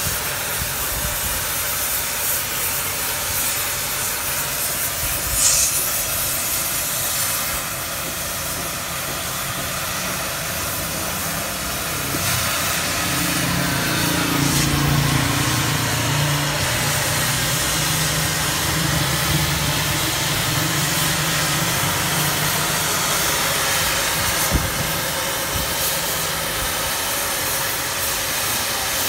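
Oxy-fuel cutting torch hissing steadily as it cuts through steel plate. A low hum joins about twelve seconds in and fades near the end.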